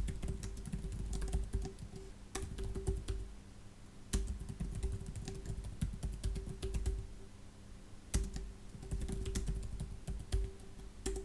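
Typing on a computer keyboard: quick runs of key clicks in several bursts, with short pauses about three and seven seconds in.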